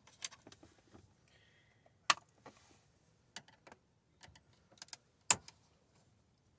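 Scattered light clicks and ticks from handling dashboard screws and plastic trim during disassembly, with two sharper clicks about two seconds in and about five seconds in.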